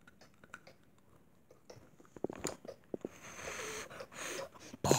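A person chewing close to the microphone: soft wet mouth clicks and smacks that begin about a second and a half in and thicken after about three seconds.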